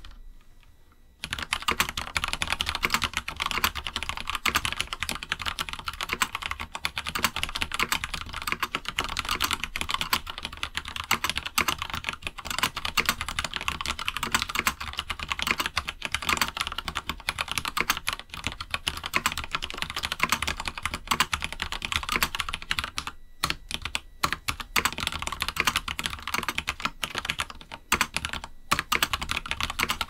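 Fast, continuous typing on a MonstarGear NINJA87 BT tenkeyless mechanical keyboard with an aluminium plate and lubed Gateron Yellow switches. It starts about a second in and has a few brief pauses near the end. A faint steady high beep from the PCB LED runs underneath.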